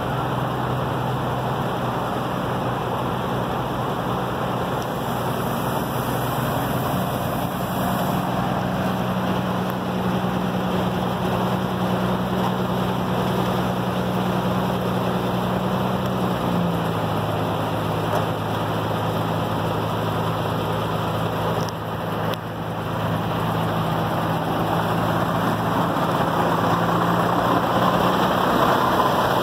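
Diesel engine of a knuckle-boom crane truck running steadily at a raised speed to drive the crane's hydraulics while it lifts a speedboat, over a steady rushing noise. Its pitch steps down slightly about halfway through, as the engine load or speed changes.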